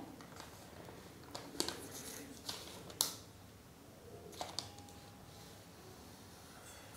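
Kitchen knife cutting lines through a sheet of kaju katli (cashew fudge), the blade scraping and tapping on the board beneath. A few faint scrapes and light clicks, the sharpest about three seconds in.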